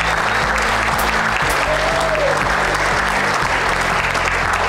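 Audience applauding steadily over background music with a low bass line.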